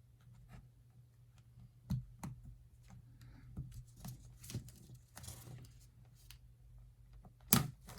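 Small plastic clips on a Sony WH-1000XM3 earpad clicking loose as a separator tool pries the pad up from the ear cup, with light handling noise. Scattered clicks, the sharpest about two seconds in and near the end, and a short rustle in the middle.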